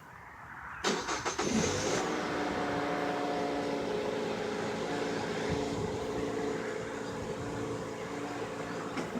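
A 2007 Mazda6's 2.3-litre four-cylinder engine is cranked and catches about a second in, then runs steadily with a set of steady tones over the idle. This is the start-up noise from the serpentine belt drive, which the owner traced to the belt tensioner bottoming out because the new belt was 2 mm too long.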